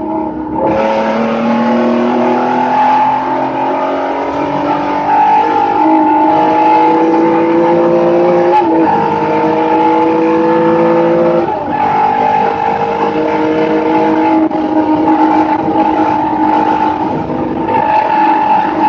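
Race car engine heard from inside the cockpit, pulling hard with its pitch climbing. Two quick upshifts drop the pitch about 9 and 11½ seconds in, then it runs on at a steadier pitch, with road and wind noise under it.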